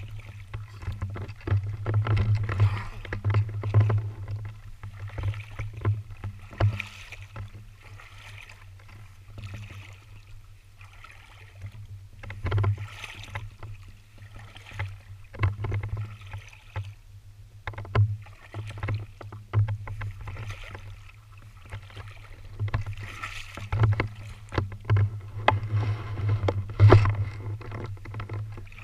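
Boots wading through a shallow creek, the water sloshing and splashing in irregular bursts with each step.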